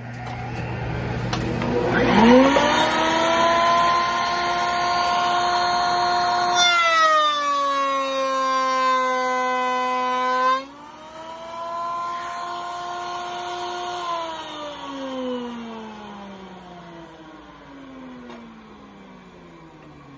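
Table-mounted router with a finger joint bit spinning up, its whine rising to a steady pitch about two seconds in. About seven seconds in the pitch sags and a rough cutting noise joins it as the bit cuts through a board, and about eleven seconds in it recovers once the cut is through. From about fourteen seconds the router is switched off and its whine falls steadily as it spins down.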